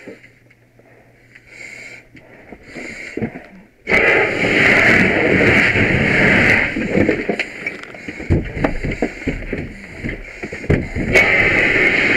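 Faint scattered knocks, then a sudden loud rushing hiss about four seconds in. It breaks into irregular knocks and clatter and comes back loud near the end.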